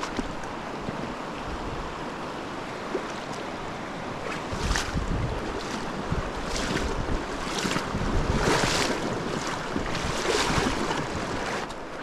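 Wading through a shallow, cold river: splashes and sloshing about once a second over the steady rush of flowing water, with wind buffeting the microphone.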